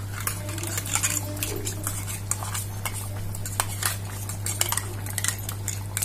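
A spoon clinking and scraping against a metal bowl and pan, many short sharp strikes, as a thick onion-tomato paste is scraped into a simmering curry and stirred in. A steady low hum runs underneath.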